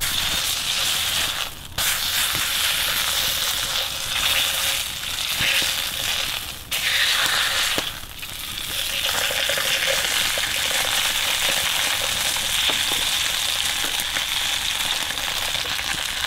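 Mackerel frying in hot fat in a frying pan, a steady sizzle with a few brief dips.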